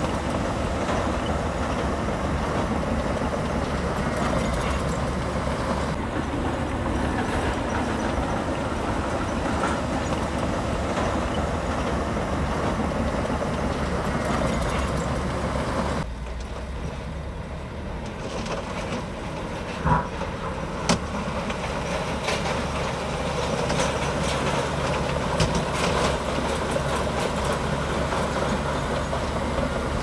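Komatsu D65P crawler bulldozer's diesel engine running with a dense mechanical clatter. About sixteen seconds in the sound drops suddenly quieter, then come two sharp clanks a second apart, and it builds back up again a few seconds later.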